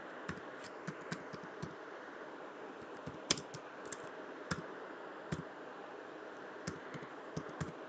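Computer keyboard typing: scattered, irregular keystrokes as a word is typed, over a faint steady hiss.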